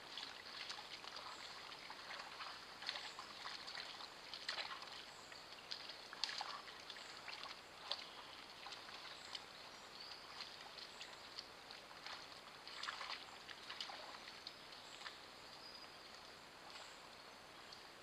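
Wild boars wading through a shallow forest stream: faint, irregular splashing and sloshing of water around their legs, busiest at the start and again about two-thirds of the way through, with faint high chirps now and then.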